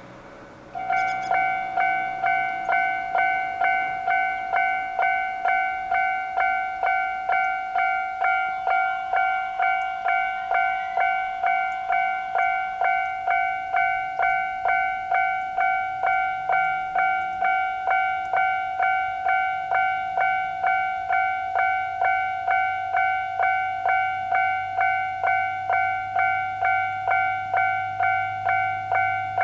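Japanese railway level-crossing alarm starting up about a second in, then ringing its repeating two-a-second electronic 'kan-kan' tone without a break. A low hum grows underneath in the second half.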